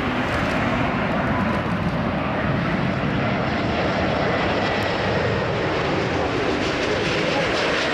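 Airbus A380-841 on final approach passing low overhead, its four Rolls-Royce Trent 970 turbofans making a steady, loud jet roar with a faint thin whine in it.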